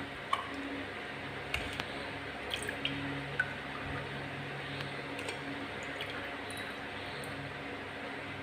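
Milk spooned from a plastic spoon over ice cubes and jelly in a glass, faintly dripping and trickling, with a few small clicks in the first few seconds over a steady low hiss.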